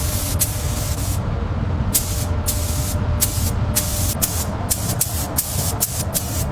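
Paint spray gun hissing in short repeated bursts over a steady low rumble.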